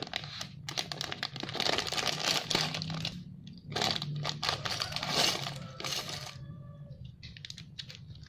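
A clear plastic polybag crinkling as it is pulled open and shaken. Small plastic building-brick pieces rattle out of it, with a few separate clicks near the end as they land on the table.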